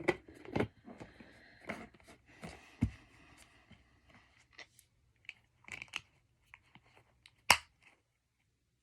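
Slime being squished and pulled in the hands, with irregular sticky pops and crackles, the loudest a sharp pop about seven and a half seconds in; the sound stops about a second before the end.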